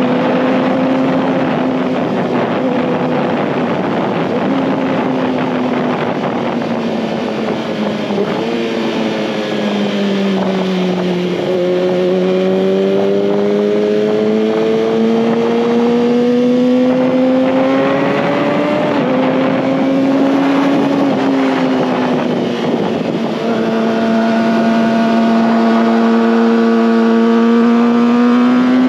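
2019 Kawasaki ZX-6R's inline-four engine running under way with wind rush. The pitch sags about ten seconds in, then climbs steadily, and drops with gear changes about nineteen and twenty-three seconds in before holding steady to the end.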